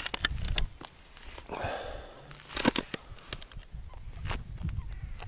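Handling noises from an angler settling down with his fishing rod and gear: a cluster of sharp clicks and knocks at the start and another about two and a half seconds in, over a low uneven rumble.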